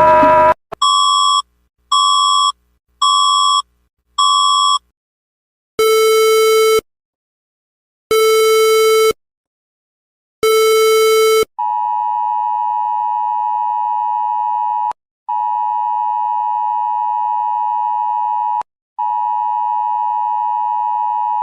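Electronic emergency alert tones: four short high beeps about a second apart, then three longer, lower, buzzier tones a little over two seconds apart, then a long steady high tone broken twice by brief gaps.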